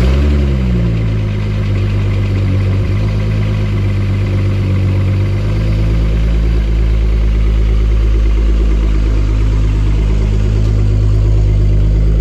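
Volkswagen Corrado engine just started cold after an oil pressure sensor replacement: it catches with a brief rev that rises and falls in the first second, then settles into a steady idle.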